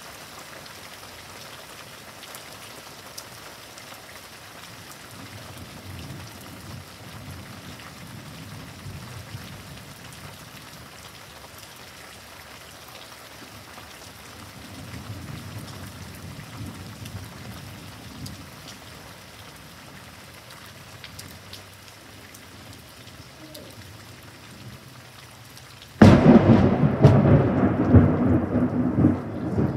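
Steady heavy rain, with two low rolls of distant thunder. Near the end a sudden, very loud clap of close thunder breaks in and goes on rumbling.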